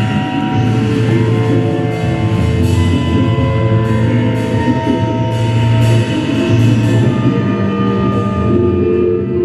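Live improvised experimental rock: a heavy sustained bass note from a six-string electric bass, held electric guitar tones, and a drum kit with cymbal hits about every half second to second, the cymbals thinning out near the end.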